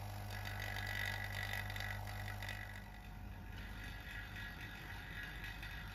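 Small electric vacuum pump running steadily with a hum, holding vacuum for a workbench vacuum clamp. The sound drops a little in level about three seconds in.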